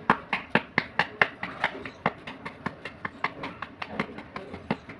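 Chalk being crushed: a quick, uneven run of sharp crunches, about four to five a second, with crumbly hiss between them.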